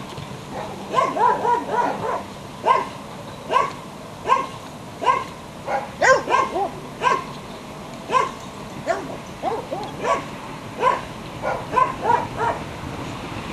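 Belgian Shepherd puppy giving a long series of short, high yips, about one or two a second, now and then several in quick succession.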